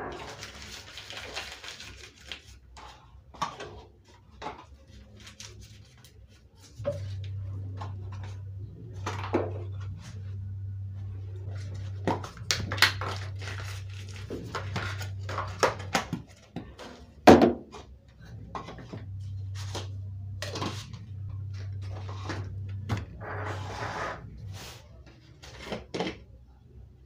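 Kitchen items being handled and set down: a string of knocks, clicks and light clatter with some rustling. A steady low hum comes on about seven seconds in, drops out for a few seconds in the middle, returns, and stops a few seconds before the end.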